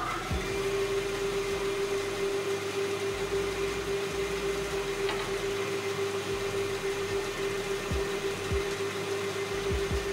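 Large vertical bandsaw running with a steady motor hum and blade whir, the blade not yet cutting, until the sound changes near the end.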